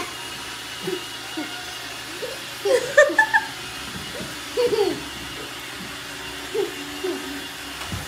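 Roomba robot vacuum running with a steady hum, under several short pitched vocal sounds that rise and fall, the loudest cluster about three seconds in and another about five seconds in.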